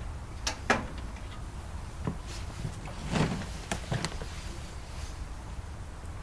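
Parts of a microwave oven being handled during disassembly: irregular clicks and knocks, the loudest less than a second in, over a low steady hum.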